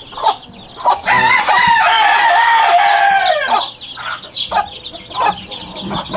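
A rooster crows once, a long steady call of about two and a half seconds that drops in pitch at the end, starting about a second in. Chicks peep around it.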